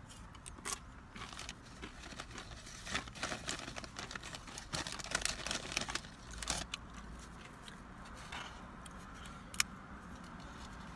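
Close-up eating sounds: tortilla chips crunching and crinkling as they are picked from a fibre bowl of food and chewed. A dense run of irregular crisp crackles fills the first six or seven seconds, then it thins to a few scattered clicks.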